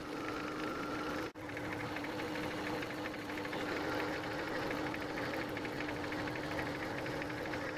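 Metal lathe running with a knurling wheel pressed into a spinning brass part: a steady motor hum under a fast, even ticking of the knurl rolling on the metal.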